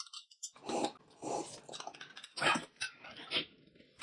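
People slurping and sipping corn porridge from spoons: a string of short, irregular slurps.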